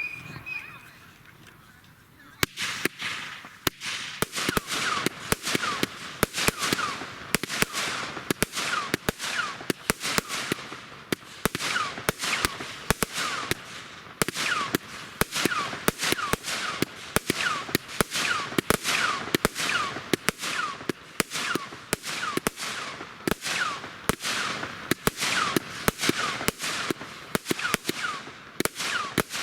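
Fireworks firing a rapid, steady run of shots, about two a second, each shot followed by a short falling whistle. The barrage starts about two seconds in.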